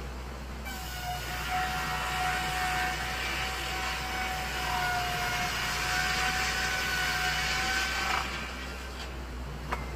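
Lumber edger's saw cutting along a board: a steady whine with a hiss that starts about a second in and stops about eight seconds in. The edger's engine hums underneath throughout, and there is a single sharp knock near the end.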